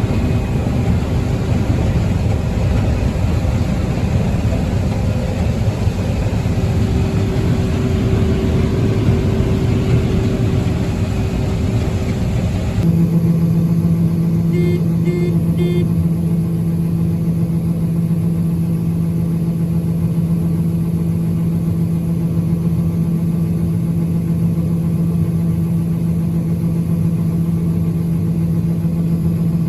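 Heavy farm machinery engine running steadily under harvest load. About thirteen seconds in, the sound changes to a smoother, steadier drone with a strong low hum. A few short high beeps come a couple of seconds after the change and again near the end.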